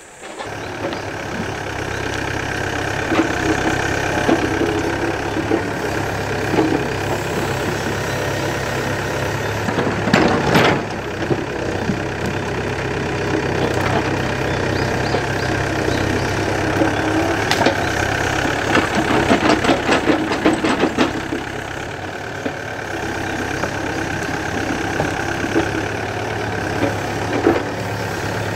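Yanmar B7 mini excavator's diesel engine running steadily under load as the bucket digs into soil and roots. Sharp knocks and cracks from the bucket breaking through roots and wood come about ten seconds in and again in a cluster a few seconds later.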